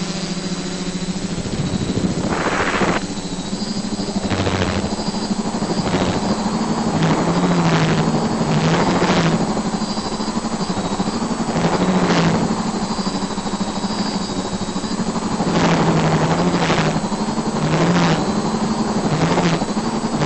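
Multirotor drone's motors and Xoar beechwood propellers humming in flight, the pitch stepping up and down as the throttle changes, with repeated short rushes of noise.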